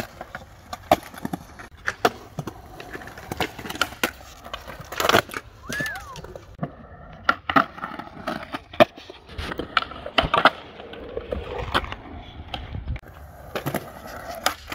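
Skateboard wheels rolling on concrete with many sharp clacks and knocks as boards and trucks strike the ground and concrete ledges during tricks.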